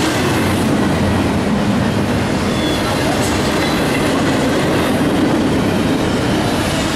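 Double-stack intermodal well cars of a CSX freight train rolling past at speed: a steady noise of steel wheels running on the rails.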